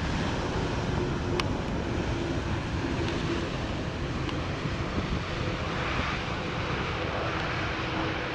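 Jet engines and rumble of a Boeing 787 Dreamliner rolling out on the runway just after touchdown, a steady roar mixed with wind on the microphone. The hiss grows brighter about six seconds in.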